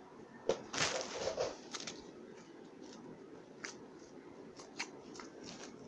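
Handling noises of unboxing: scattered clicks and rustles, with a short burst of crinkling about a second in.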